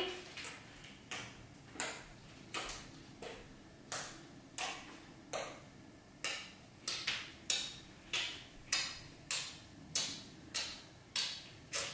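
Green glue slime squeezed and poked by hand, giving a series of faint sharp clicks or pops at slightly uneven spacing, about one to two a second.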